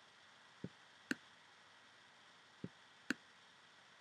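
Computer mouse button clicked and dragged twice: each time a dull click on the press, then a sharper click about half a second later on the release.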